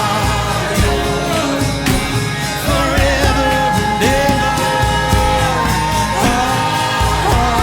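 Live worship music: a voice singing long held, wavering notes over a band with a steady low bass and regular drum and cymbal hits.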